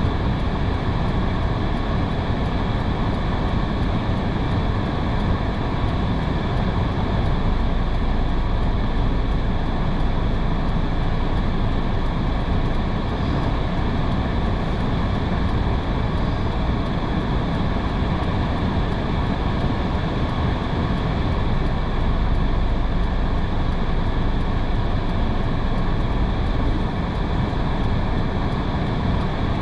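A car driving on a rain-soaked road: steady tyre and road noise on wet pavement mixed with rain, weighted toward the low end and unbroken throughout.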